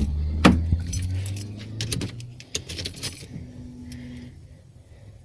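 Light metallic jingling and sharp clicks and knocks, mostly in the first three seconds, over a low steady hum that fades out about halfway.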